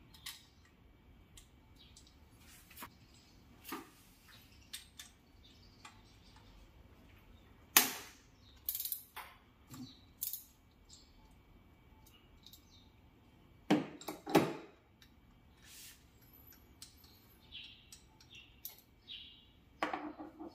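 Irregular clicks and knocks of hand tools and parts being handled during a spark plug change, with two or three louder knocks about eight and fourteen seconds in.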